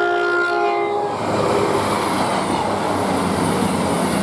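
CrossCountry Voyager diesel multiple unit sounding its horn for about a second, then rushing past at speed with loud, rising wheel and rail noise.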